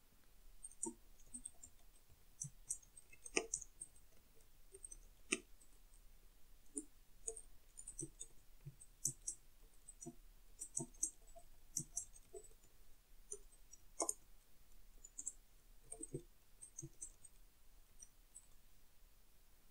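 Faint, irregular clicking of a computer keyboard being typed on, in uneven runs of keystrokes, with a few louder clicks.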